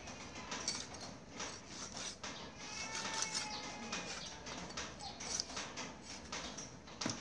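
Kitchen knife sawing and scraping through the skin and flesh at a plucked duck's neck on a wooden chopping block, in short irregular strokes. A bird calls briefly about three seconds in.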